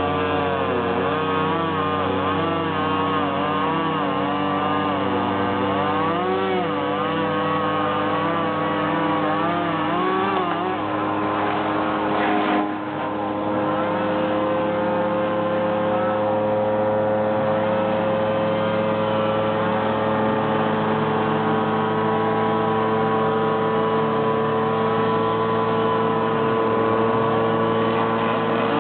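Chainsaw and engine running steadily, several steady tones with one pitch wavering up and down. A short sharp break comes about twelve and a half seconds in.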